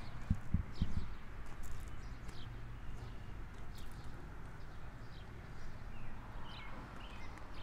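Footsteps crunching on gravel, a few steps in the first second, with small birds chirping repeatedly in the background over a steady low rumble.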